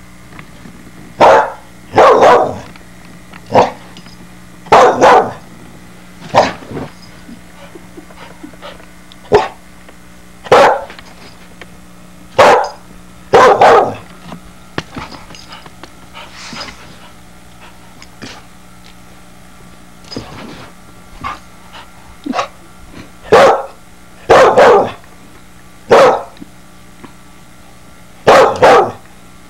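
A young soft-coated wheaten terrier barking: about fifteen sharp barks, some single and some in quick pairs, unevenly spaced with pauses of a second or more between them.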